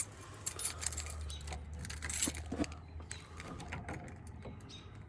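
A ring of keys jangling and clinking in hand as they are sorted one-handed to find the right key.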